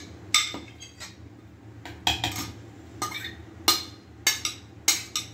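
Steel spoon scraping and clinking against a plate as grated carrot is knocked off into a blender jar, in a run of sharp, irregular clinks about one or two a second.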